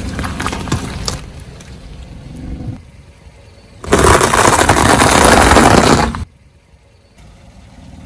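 Car tyre squashing old fruit with a few crackles over a low rumble, then, after a short lull, a loud dense crunching for about two and a half seconds as the tyre rolls over a pile of crunchy snack foods, stopping suddenly.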